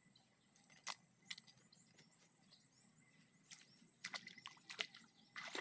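Faint outdoor background with a few sharp clicks and crackles, one about a second in and a quick cluster near the end.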